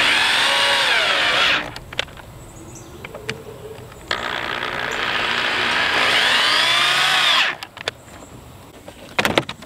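Corded electric drill run in two bursts into a wooden frame joint, the second longer, its pitch dipping and climbing as it works into the wood. A few sharp knocks near the end.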